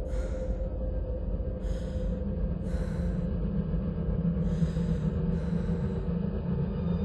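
A person's gasping, heavy breaths, about five of them, over a low steady drone.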